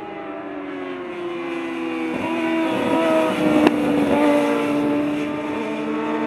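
600cc superstock racing motorcycles passing at speed through a corner, their engines at high revs with the pitch sliding as they come through. The sound grows to its loudest a little past the middle, with one sharp click there, then eases off.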